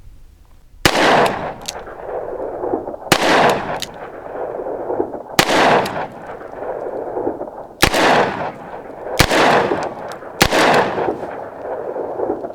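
Smith & Wesson Model 19-5 snub-nose revolver firing .357 Magnum rounds: six shots. The first three come slowly, about two seconds apart, fired single action; the last three come faster, about a second apart, fired double action. Each shot is followed by a long echoing tail.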